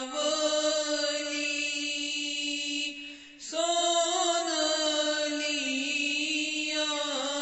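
A voice chanting a Kashmiri devotional kalam in long, drawn-out held notes, breaking off briefly for breath about three seconds in.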